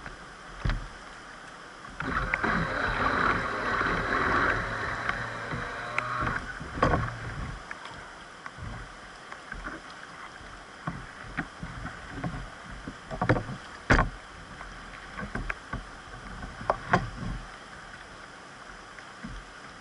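River water rushing around a whitewater canoe, louder for a few seconds about two seconds in, with several sharp knocks and splashes from paddling.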